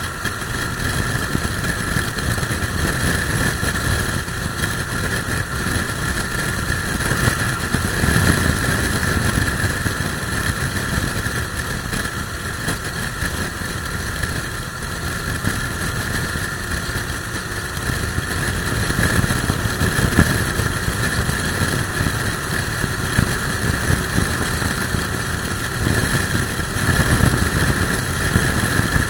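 Motorcycle cruising at expressway speed: steady engine and road noise with wind rushing over the microphone. The wind swells into louder gusts several times, from a strong crosswind.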